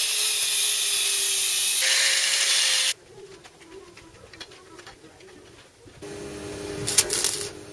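Electric angle grinder grinding a steel frame tube, running loud and steady for about three seconds before it stops suddenly. Light metal clinks follow as parts are handled, then a second steady noise starts about six seconds in.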